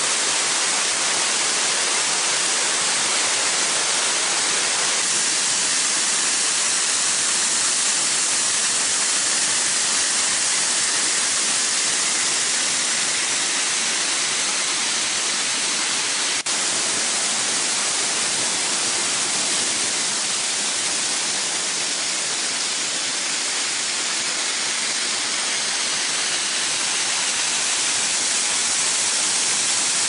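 Beușnița waterfall's white water pouring over limestone ledges: a loud, steady rush. There is a faint click about halfway through.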